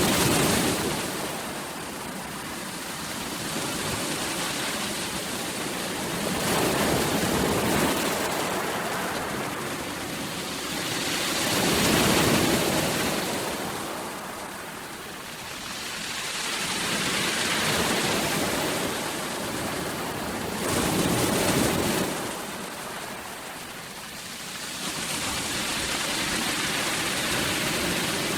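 Sea waves breaking and washing in: a steady surf hiss that swells and ebbs about every five or six seconds.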